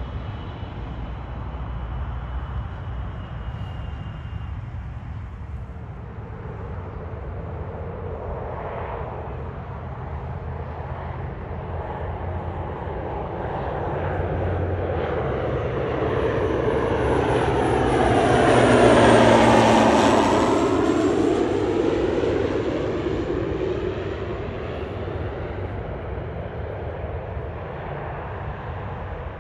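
A jet on landing approach flies past: its engine noise builds to a peak about two-thirds of the way through and then fades, with a high whine that drops in pitch as it goes by.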